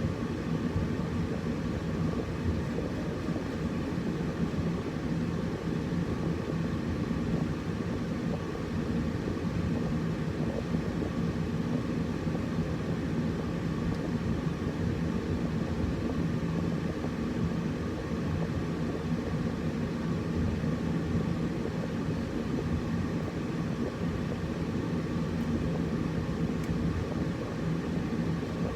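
Air conditioner running steadily: an even low rumble of fan and compressor with a faint constant hum.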